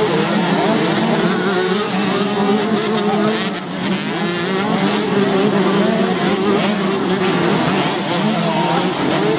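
A pack of motocross bikes riding together, many engines at once revving, their pitches wavering up and down over one another as the riders work through a turn.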